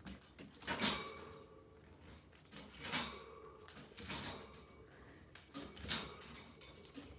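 Pet parrot playing with a hanging toy, a few light clatters and rattles as the toy is picked up and let drop, at irregular intervals.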